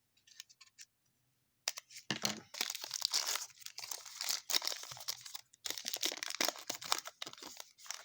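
A sealed baseball card pack's wrapper being torn open and crinkled in the hands, starting about a second and a half in and going on in rapid crackling bursts.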